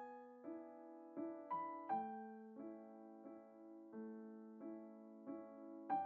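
Background piano music: single notes and small chords struck and left to fade, at an unhurried pace of roughly one every half second to second.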